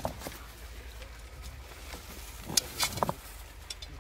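A metal snake hook knocking and scraping among loose stones while digging out a cobra, with a few faint clicks near the start and a cluster of sharp knocks and clinks about two and a half seconds in.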